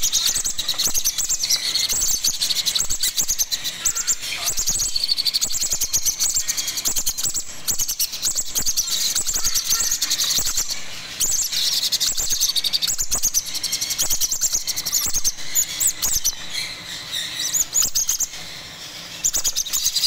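Nestling macaw chicks giving rapid, high-pitched food-begging chirps as they are hand-fed with a syringe, a dense unbroken chatter that dips briefly about halfway and again near the end.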